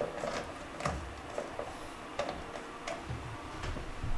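A few scattered light clicks and taps of a screwdriver and wires against an electric shower's terminal block as the wires are undone.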